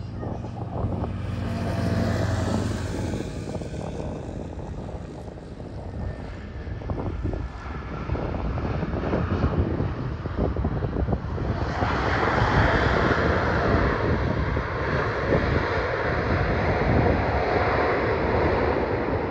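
Airbus A320neo jet airliner with CFM LEAP-1A turbofan engines landing and rolling out along the runway, its engine noise steady at first, then swelling to a loud roar about twelve seconds in.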